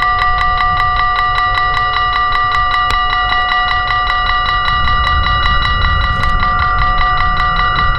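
Railway level crossing warning bell ringing rapidly and steadily, about five strikes a second, with low wind rumble on the microphone.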